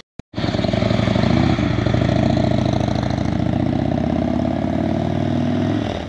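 Harley-Davidson V-twin motorcycle engine running loud and steady, cutting in suddenly about half a second in.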